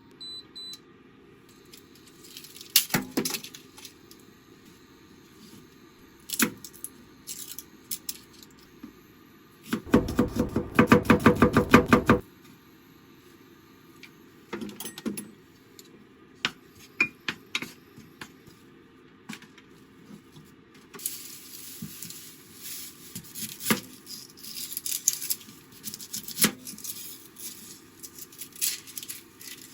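Kitchen prep sounds: scattered clinks and knocks of dishes and utensils. About ten seconds in comes a two-second run of rapid knocks, about ten a second. Later there is a stretch of rustling with small clicks.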